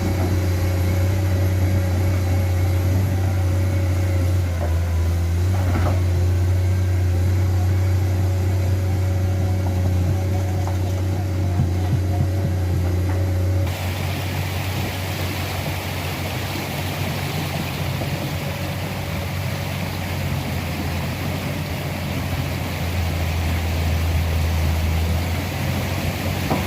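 Komatsu excavator's diesel engine running with a steady low hum; the sound changes abruptly about halfway through.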